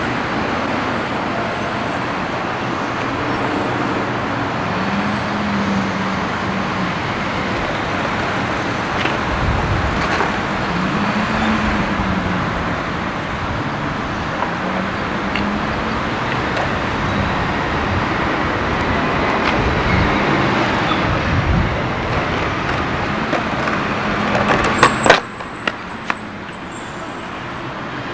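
City road traffic: a steady rumble of passing cars and heavier vehicles, with engine notes rising and falling as they go by. A few sharp clicks come near the end, after which the noise drops somewhat quieter.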